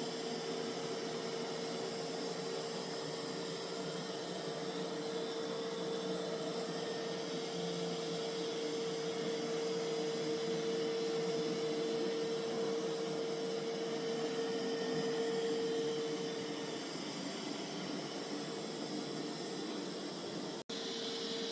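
Mova Z60 robot vacuum's suction motor running steadily on its cleaning run: an even rushing hiss with a steady whine, which the owner takes for turbo or max suction. The whine drops out about seventeen seconds in, and the sound cuts off for an instant near the end before the whine comes back.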